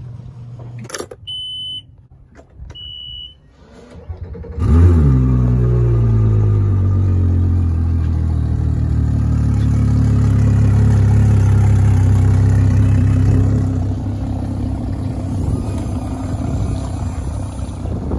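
Two short high beeps, then a Mercury Racing 400 four-stroke outboard starts about four and a half seconds in. Its revs flare on catching and drop quickly into a steady idle.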